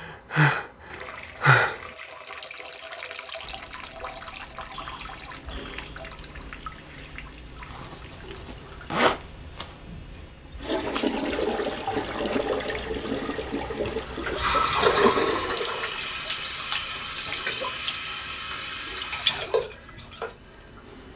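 Water rushing for about nine seconds, growing brighter and hissier partway through, then stopping abruptly; a sharp click comes shortly before it starts.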